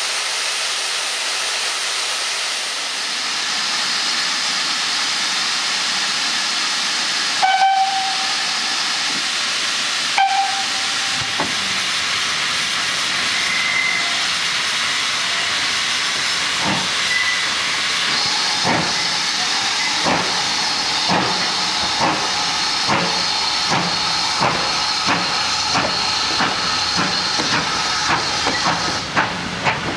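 Steam locomotive, GWR 2-6-2 prairie tank no. 4160, hissing steam, giving two short whistle blasts, then starting away with its coaches. Its exhaust beats begin slowly and quicken to several a second near the end.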